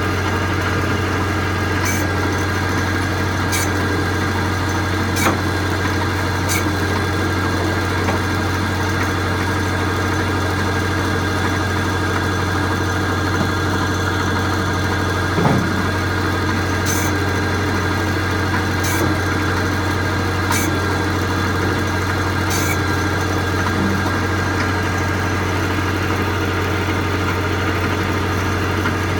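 Tractor engine running steadily at idle, a constant low drone, with a few sharp clicks and knocks scattered through it.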